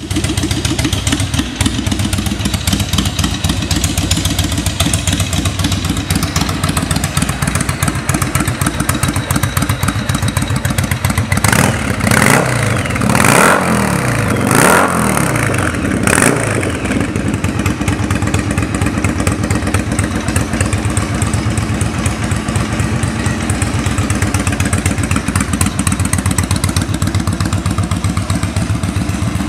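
Yamaha Virago 750's air-cooled V-twin engine idling steadily, blipped three times in quick succession about halfway through, then settling back to idle.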